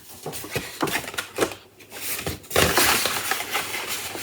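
Paper rustling and crinkling with scattered light clicks, becoming denser and louder about two and a half seconds in, as an envelope is handled and opened.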